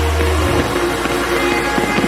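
Music with sustained held notes over a deep bass tone; the bass drops out about half a second in.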